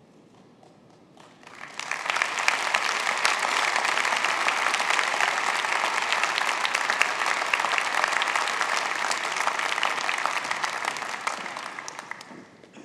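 Audience applauding: the clapping swells about a second in, holds steady, and dies away near the end.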